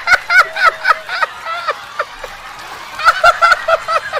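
A voice letting out rapid, high-pitched yelping shrieks, about five a second, in two runs with a pause of about a second and a half between them.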